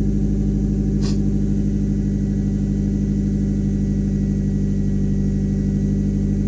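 1999 Mazda Protege's four-cylinder engine idling steadily after its EGR valve was cleaned and a cracked hose replaced. The idle holds without dropping, though it still feels a little rough. A short click about a second in.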